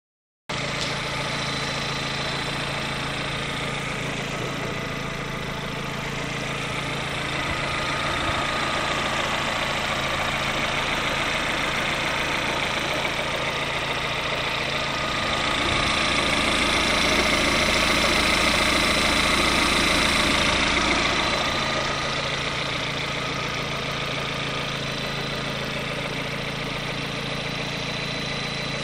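Lada Kalina's VAZ-11194 1.4-litre sixteen-valve four-cylinder engine idling steadily after a rebuild of its pistons and connecting rods, running quietly without knocking. It grows somewhat louder for a few seconds around the middle.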